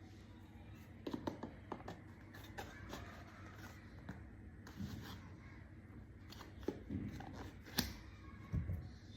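Scattered light taps, clicks and scrapes of small objects being handled, with sharper clicks about seven and eight seconds in.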